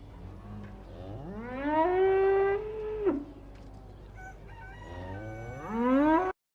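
Cow mooing twice: a long call that rises in pitch and holds, then a second rising moo that is cut off abruptly.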